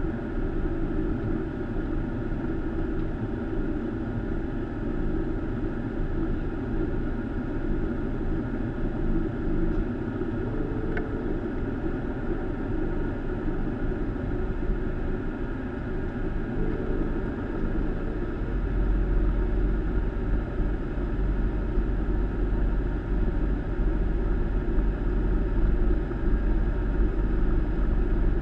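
Steady cockpit noise of a Boeing 737 taxiing with its engines running. A deeper rumble strengthens about two-thirds of the way through.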